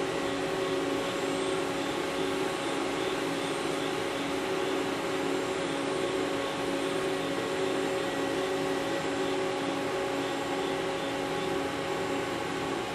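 Mori Seiki ZL-15 CNC lathe running under power: a steady machine hum with several unchanging whining tones over an even hiss.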